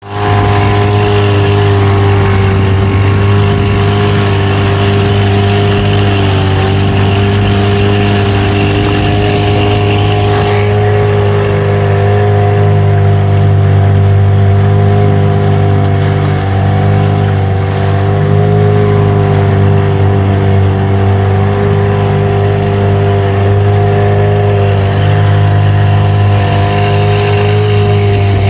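Motorboat engine running at a steady speed, a constant low drone under a hiss of wind and water that eases about ten seconds in.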